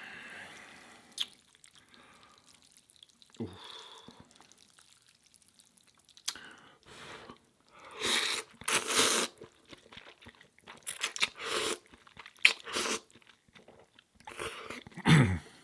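A person chewing food close to the microphone, mukbang-style eating sounds. A handful of short, loud noisy bursts come from about halfway through to near the end.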